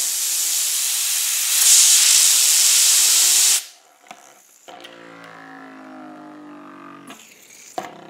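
A jet of compressed air hissing loudly against a small 3D-printed ball-bearing fidget spinner, spinning it up as a top; the air cuts off suddenly about three and a half seconds in. The released spinner then spins on the tabletop with a quieter, steady hum, with a single click near the end.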